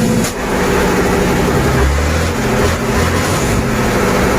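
Heavy lorry engine running loud and steady, with a low rumble and a constant hum.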